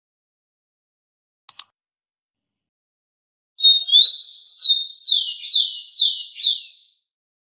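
Rufous-collared sparrow (tico-tico) singing one song: a steady high whistle that slides upward, then a run of about six quick down-slurred notes. Before it, two quick clicks about a second and a half in.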